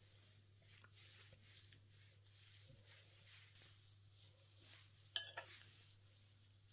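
Quiet kitchen handling sounds: soft scrapes and rustles, then a sharp clink of a utensil against a dish about five seconds in, followed by a smaller one.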